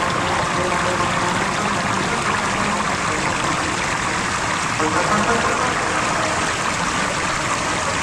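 Mountain river rushing and splashing over boulders in a rapid: a steady, even roar of white water.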